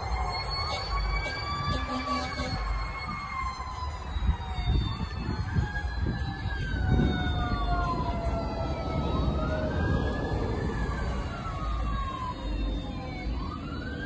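Sirens of a 2019 Pierce Enforcer aerial platform fire truck running on a call: a wail rising and falling about every three seconds, over a second, slowly falling siren tone in the first half, with the low rumble of passing traffic.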